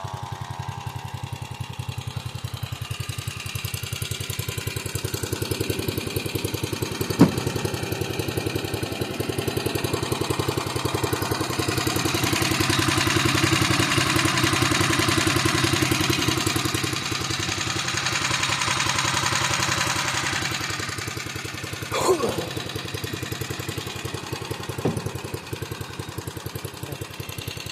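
Unmuffled 21-horsepower Kawasaki engine idling with a rapid, even beat, swelling somewhat in the middle and easing off again. A couple of sharp clicks and a brief falling whine about four-fifths of the way through.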